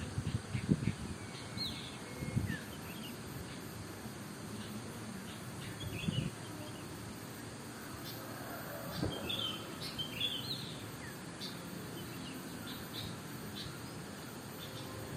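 Small songbirds chirping and calling back and forth in short, scattered bursts of high chirps over a steady background hiss. A few brief low thuds come in the first half, the loudest near the start.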